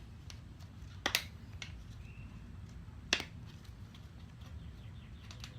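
Two sharp snaps about two seconds apart as a bicycle tire is pried and pulled off the wheel rim.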